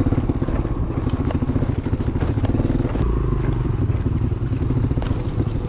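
Small motorcycle engine running steadily while riding a rough dirt forest track, with a few sharp knocks from the bumpy ground.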